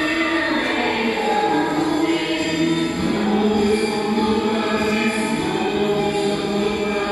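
Choral music: voices singing long held notes in chords, the chord shifting about three seconds in.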